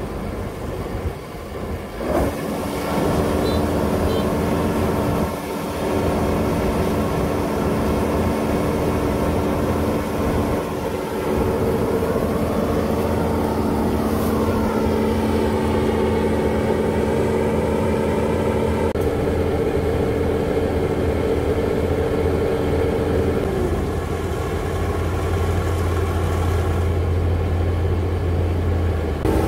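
Kubota ZR6130 rice combine harvester's diesel engine and drives running steadily, with several held tones over a low hum. It gets louder about two seconds in, and the tone changes twice in the second half.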